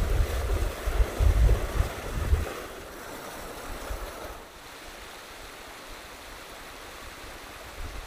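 Shallow stream rushing over rock, with wind buffeting the microphone in the first couple of seconds. About four seconds in the sound drops to a quieter, steady trickle.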